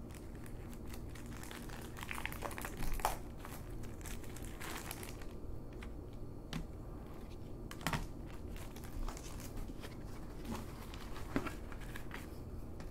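Paper and card packaging of an AOL floppy-disk mailer being handled and shuffled: irregular rustling and crinkling with a few sharper taps and clicks, over a faint steady low hum.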